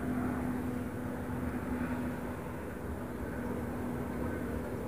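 A steady, low engine hum over a rumbling background.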